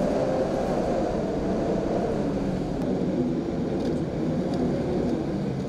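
Tropical-storm wind blowing steadily with rain, a low, unbroken rumble.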